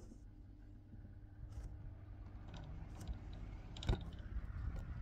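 Electric desk fan running up to speed with one blade deliberately weighted by a lump of Blu Tack, a low rumble and hum getting louder as it spins: the sound of an unbalanced fan rotor. A sharp knock about four seconds in.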